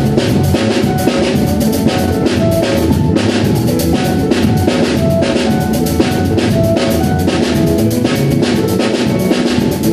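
Live instrumental rhumba jam: a drum kit plays a steady, busy groove of kick, snare and cymbal strokes, with two Yamaha synthesizer keyboards (a MOXF and an MO6) playing short melodic and bass notes over it.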